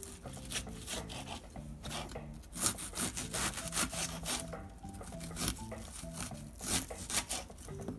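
Kitchen knife dicing a red onion on a plastic cutting board: an irregular run of quick taps and slicing strokes against the board.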